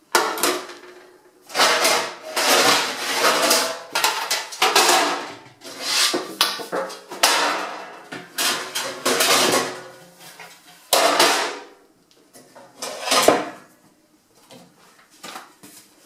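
Metal baking trays and oven racks clattering, scraping and knocking against each other and the shelf as they are lifted out of a kitchen cupboard. The rattling comes in bursts with short pauses for about eleven seconds, then one sharp knock and a few lighter ones near the end.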